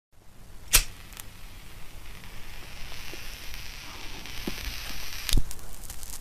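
Title-card sound effects: a sharp hit about a second in, then a hissing, crackling rush that builds and holds, and a second loud hit about five seconds in followed by a scatter of crackles.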